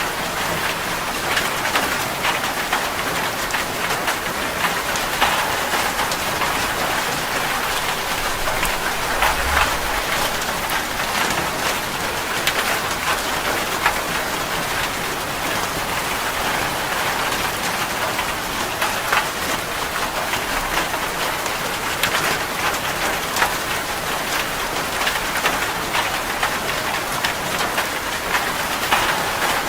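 Heavy rain drumming steadily on a metal roof, with dense patter and sharp individual drop strikes. There is a short low rumble about nine seconds in.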